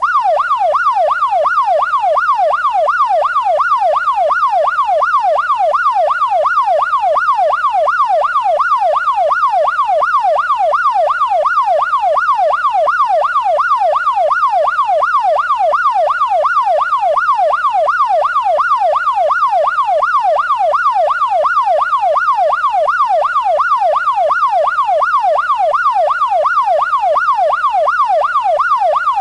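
Police siren in its fast yelp: a loud tone sweeping up and down over and over, about one and a half cycles a second, without a break.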